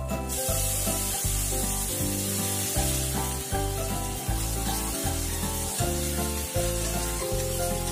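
Bombay duck fish frying in hot mustard oil in a steel wok, a steady sizzle that starts as the fish goes in, with a spatula stirring it. Background music with a steady beat plays under it.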